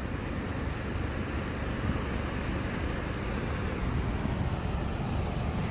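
Steady rushing roar of a waterfall close by, an even noise with no breaks.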